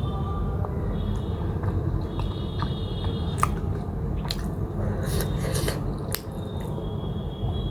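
Close-up mouth sounds of someone biting and chewing buff momos dipped in achar: wet squishes, smacks and small clicks scattered through, over a steady low hum.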